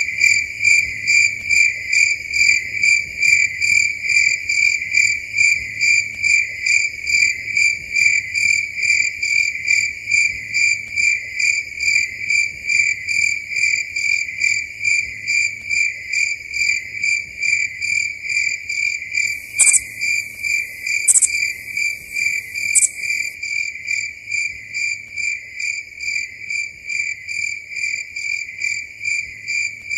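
Crickets chirping in a steady, even pulsing chorus, about two chirps a second. Three brief, sharp high clicks come about two-thirds of the way through.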